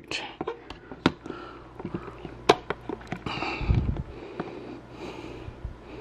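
Handling noises of a teleprompter hood being fitted onto a camera: scattered sharp clicks and taps, with a dull bump and a short breathy noise about three and a half seconds in.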